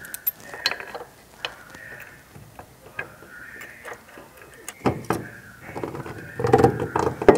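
Small metallic clicks and clanks of a bolt being threaded by hand into the rear transverse link mount of a Datsun 260Z, with the steel link and its hardware knocking as they are handled. There are louder clatters about five and six and a half seconds in.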